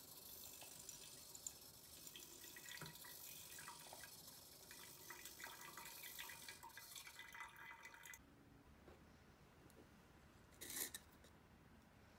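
Thin stream of hot water trickling and dripping onto a paper filter in a pour-over coffee dripper, rinsing the filter. The trickle cuts off about eight seconds in, and a brief knock follows near the end.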